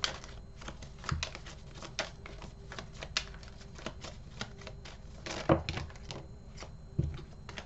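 Tarot cards being handled and shuffled by hand: a quick, irregular run of card clicks and flicks. Two louder slaps come about 5.5 and 7 seconds in as cards are dealt down onto the table.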